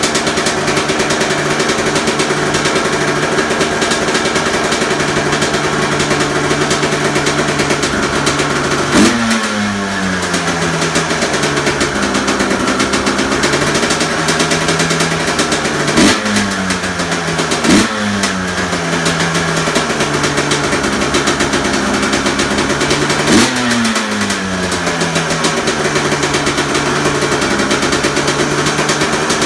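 2002 Honda CR250 two-stroke dirt bike engine, fitted with a Pro Circuit expansion chamber, idling steadily and blipped four times: about nine seconds in, twice close together near sixteen and eighteen seconds, and near twenty-three seconds. Each blip shoots up sharply and the revs fall back to idle over about a second.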